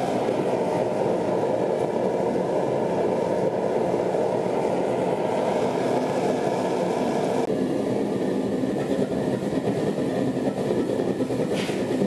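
Propane burner running in a small homemade foundry furnace, a steady loud rushing flame noise, its tone shifting slightly about seven seconds in.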